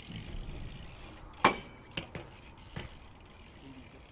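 BMX bike striking hard with a sharp metallic clank that rings briefly, about one and a half seconds in, followed by three lighter knocks and clicks from the bike.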